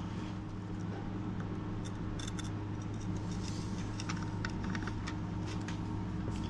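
Light clicks and short scrapes as a steel kitchen knife is handled and shifted on the base plate of a digital microscope stand, clustered in the middle seconds. A steady low hum runs underneath.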